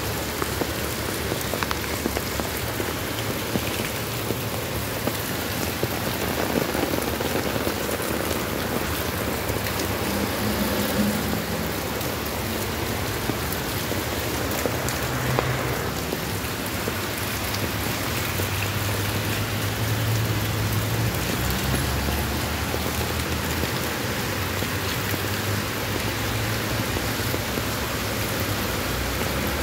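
Heavy rain pouring onto wet stone paving and a street, a steady hiss of drops splashing on the pavement and into the surface water running over it.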